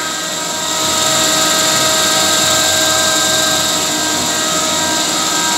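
Lupamat screw air compressor and Mikropor refrigerated air dryer running: a continuous machine drone with a steady hiss and several fixed tones, growing a little louder about a second in. The compressor is pumping up its 1,000-litre receiver tank.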